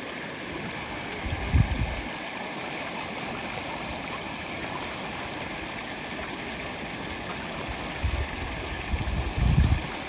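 Steady rush of flowing water in a fast current, broken by a couple of brief low buffets about a second and a half in and near the end.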